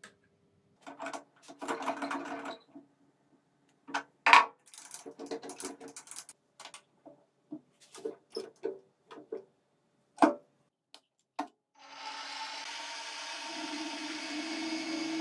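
Small steel parts and tools clinking and clattering as a workpiece is set and clamped in a machine vise, with two sharp metal knocks, the loudest of them about four seconds in. A little after ten seconds the electric spindle motor of a benchtop milling-drilling machine starts and runs steadily with a whine.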